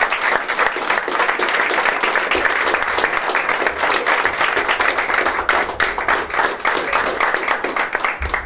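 Audience applauding: dense, sustained clapping by a group of people in a small room, which stops abruptly near the end.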